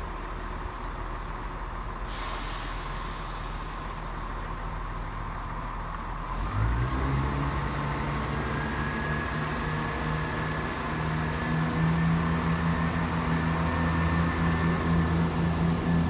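A diesel train's engine idles, with a hiss of released air about two seconds in. Then the engine powers up, its note rising and growing louder, and a high steady whine joins it.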